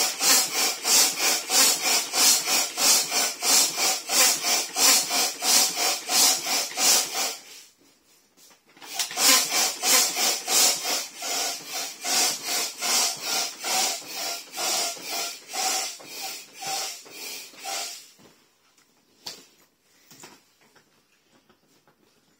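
Manual air pump worked in quick strokes, about three a second, each stroke pushing air into an inflatable vinyl tiger. The pumping stops briefly about seven seconds in, resumes, and ends around eighteen seconds, leaving a few faint taps as the vinyl and valve are handled.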